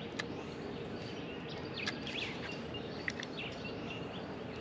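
Small birds chirping now and then over a steady outdoor background hiss, with a few faint sharp clicks.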